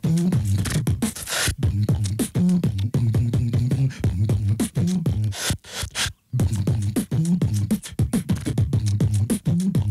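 Human beatboxing: a fast run of mouth-made kick, snare and hi-hat clicks over a hummed bass line. It breaks off briefly about six seconds in.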